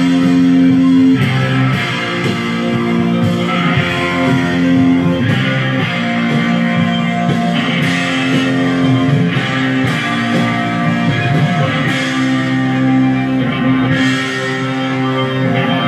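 Rock music led by electric guitar, with held chords that change every second or two.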